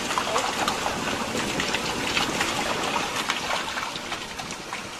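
Water pouring down a borewell casing to recharge the well: a steady gushing with many small splashes.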